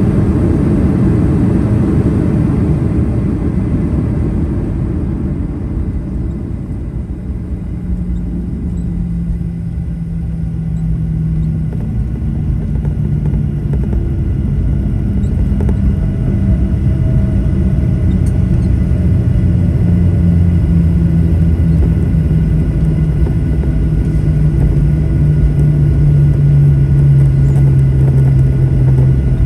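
Cabin noise of a Boeing 737-700 with CFM56 engines just after landing. A loud rumble of the rollout eases off over the first several seconds, leaving a steady low engine hum as the jet slows to taxi. The hum carries a tone that drifts slowly down in pitch and grows a little louder near the end.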